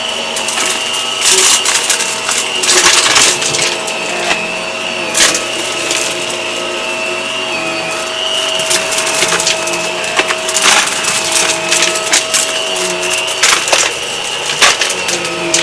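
Hart vacuum cleaner running with a steady whine while it picks up debris, which crackles and clicks through it at irregular moments.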